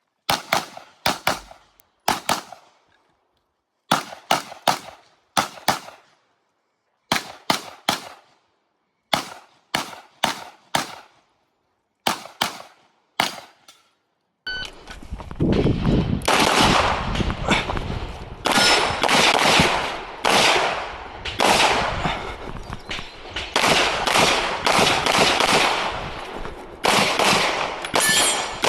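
Pistol shots fired in fast groups of two or three, with short pauses between groups, as a shooter works through a practical-shooting stage with an optic-equipped handgun. About halfway in, a steady rushing noise comes in under the shots, which come faster and closer together.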